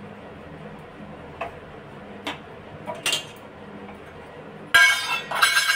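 A few faint ticks of a steel spoon on a stainless steel bowl. Near the end comes a sudden loud, ringing clatter and scrape of steel utensils.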